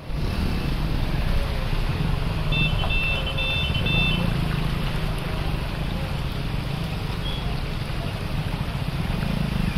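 Steady low rumble of motor scooters and a small truck running through the standing water of a flooded street, with a short run of high beeps about two and a half seconds in.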